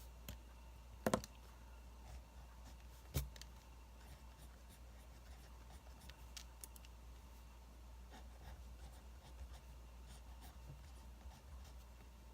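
Quiet wood fire crackling with faint scattered ticks, and two sharper pops about one and three seconds in, mixed with soft pen-on-paper writing.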